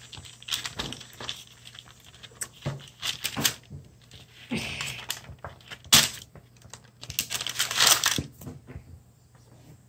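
A fork crimping the edge of a folded pastry pasty on a tabletop: irregular taps and clicks of the tines, with scraping and rustling between them. The sharpest tap comes about six seconds in.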